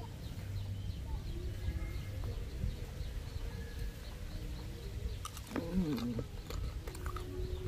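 Crisp crunching bites and chewing of a fresh green jujube, as sharp clicks mostly in the second half, over a low steady rumble. About five and a half seconds in, a short 'mmm' of enjoyment falls in pitch.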